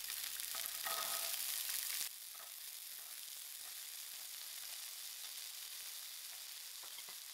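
Soaked white chickpeas (chana) sizzling in a little hot oil in a frying pan as handfuls are dropped in. The sizzle turns quieter about two seconds in.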